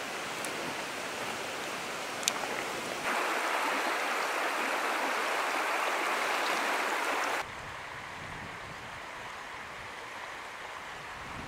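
Shallow river water rushing and rippling over stones, a bright steady hiss that starts suddenly about three seconds in and drops to a softer, fuller river rush about seven seconds in. Before that there is a quieter steady hiss from the wood fire under the grill, with one sharp crack about two seconds in.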